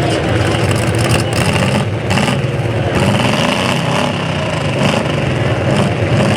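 Demolition derby cars' engines running and revving, loud and unbroken, with pitches that rise and fall.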